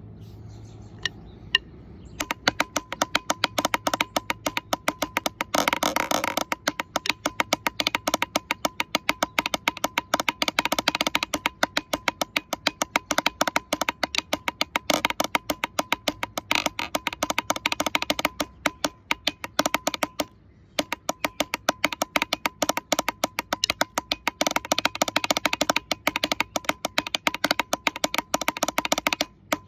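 Drumsticks played fast and continuously on the hollow plastic lid of a water cooler jug, a rudimental drum pattern with a steady ringing pitch under the strokes. A few single taps lead in, dense playing starts about two seconds in, and there is one short break about twenty seconds in.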